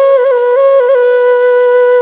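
Background music: a solo flute melody, quick ornamented notes in the first second, then one long held note.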